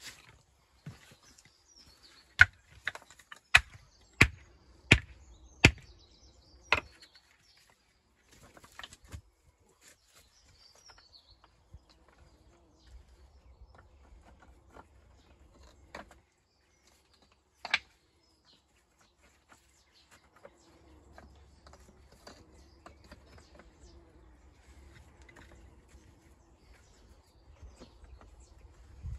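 Hammer striking stone: about seven sharp blows in quick succession a couple of seconds in, then a single blow later on. Birds chirp faintly in the background.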